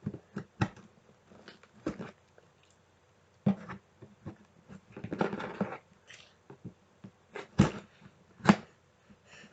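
A taped cardboard box being handled and opened by hand: scattered knocks and clicks, with a longer rustle about five seconds in and two sharper knocks near the end.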